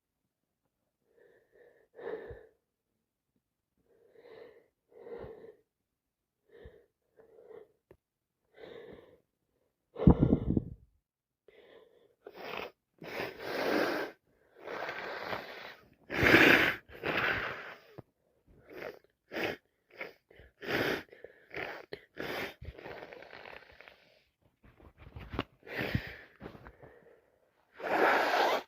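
A woman with a head cold sneezing repeatedly. First come short, quiet breathy sounds about once a second, then from about ten seconds in a run of loud, wet sneezes in quick succession.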